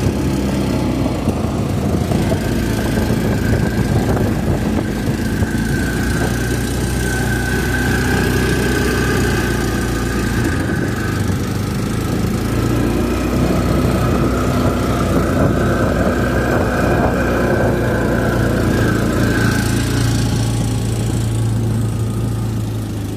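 ATV engine running steadily, with little change in speed.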